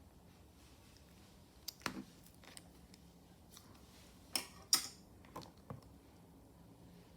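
Chewy chocolate slime being pressed and stretched by hand, giving scattered sticky clicks and small pops. The loudest are two pops about four and a half to five seconds in.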